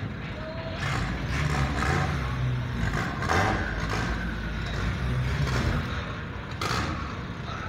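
Car engine running at idle, a low steady hum that wavers a little, with a few short clattering knocks over it.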